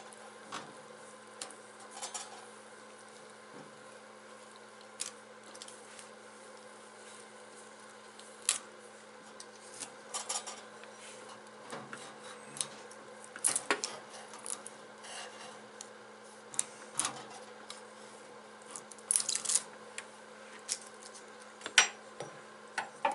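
Scattered metallic clicks, taps and short scrapes of hands and a tool working on a sheet-metal toolbox. The clicks grow busier in the second half, over a steady low hum.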